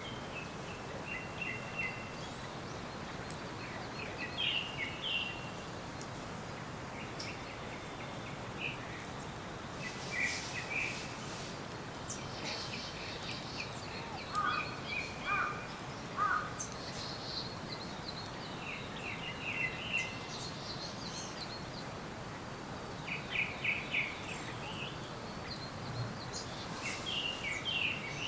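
Forest birds chirping and calling in short repeated phrases, several at once, over a steady even background hiss of outdoor ambience.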